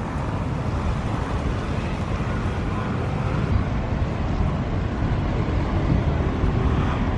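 Steady low outdoor rumble, heaviest in the deep bass, with no single distinct event.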